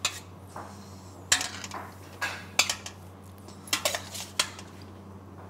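Metal spoon clinking against a stainless steel bowl and wire mesh sieve as wet meat is scooped out to drain: about half a dozen sharp, irregular clinks over a steady low hum.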